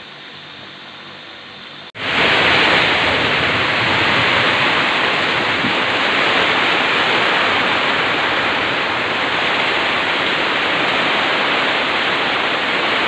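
Heavy rain pouring down: a loud, steady hiss that starts abruptly about two seconds in, after a quieter steady background hum.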